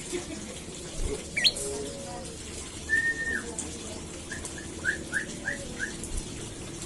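Olive-backed tailorbird (prenjak lumut) calling: a quick upward-sweeping note, then a single held note, then a run of about six short, evenly spaced notes.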